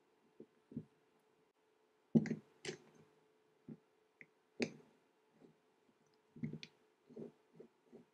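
Camera ball head being handled and fitted: a scatter of irregular light clicks and knocks, the sharpest about two seconds in and again near the middle.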